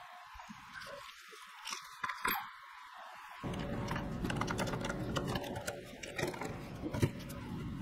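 Bar clamps being unscrewed and taken off a glued-up wood panel: scattered light metal clicks and knocks, with a few sharper ones about two seconds in and near the end.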